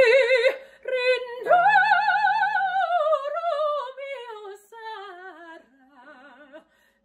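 A woman singing opera with a wide vibrato. A long high note comes about one and a half seconds in, then the phrase falls step by step to low notes near the end.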